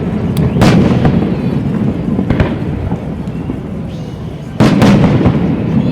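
Aerial fireworks shells bursting: sharp bangs about half a second in and again about two and a half seconds in, then a loud pair near the end, over a continuous low rumble of echoing explosions.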